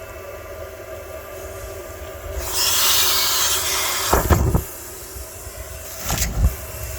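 Car wash vacuum cleaner running with a steady motor hum. About two and a half seconds in, a loud hiss of rushing air lasts almost two seconds, followed by two low thumps.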